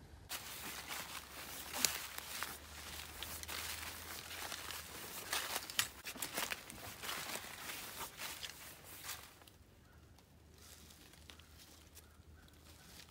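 Irregular crunching and crackling of dry leaves and twigs on the forest floor, easing off about nine seconds in.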